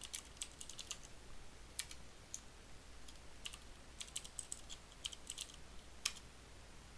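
Typing on a computer keyboard: a run of faint, irregularly spaced keystrokes, with a sharper stroke about two seconds in and another about six seconds in.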